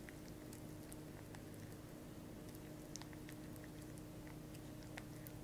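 A spatula stirring thick cocoa-and-honey chocolate paste in a small glass cup: faint sticky squelches with light, scattered clicks of the spatula against the glass.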